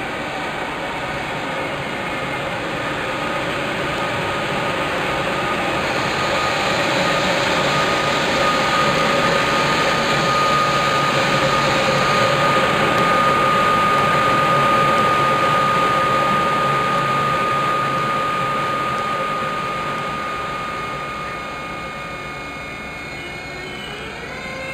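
ÖBB Taurus electric locomotive and its passenger coaches running past on the platform track. The rolling noise of wheels on rail swells to its loudest around the middle and then fades, with a steady high whine held through the middle.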